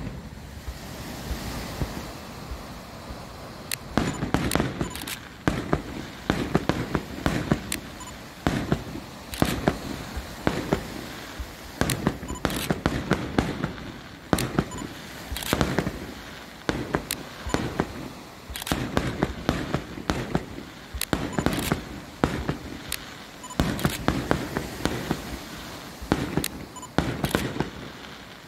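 Aerial fireworks shells bursting one after another: a continuous run of sharp bangs, often in quick clusters, with crackles between them.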